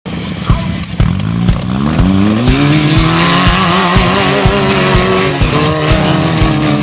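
Off-road buggy engine revving up and holding high revs as it climbs under load, over music with a steady beat of about two thumps a second.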